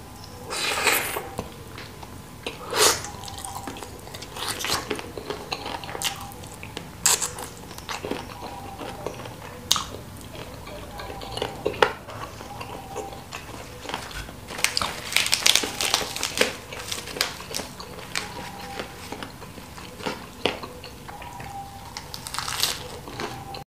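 Close-up eating sounds: wet chewing and biting of chicken feet coated in spicy chili sauce, with scattered sharp crunchy crackles and mouth smacks. Near the end a bite of fresh curly lettuce adds a louder burst of crisp crunching.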